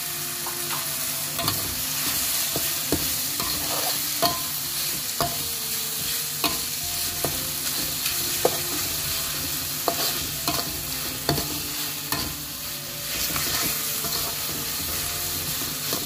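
Chopped shallots, chilies, tomato and torch ginger sizzling in oil in a pan as a metal spatula stirs them, its edge clinking and scraping against the pan every second or so: the sambal is being sautéed until the vegetables wilt.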